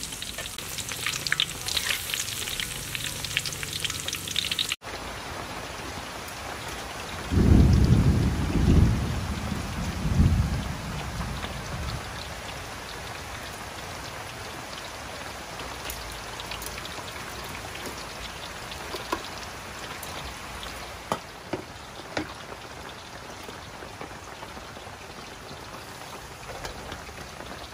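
Battered pineapple deep-frying in a wok of hot oil: a steady sizzle with crackles. About five seconds in, after a cut, a loud deep rumble lasts several seconds. A steady hiss with a few light clinks follows.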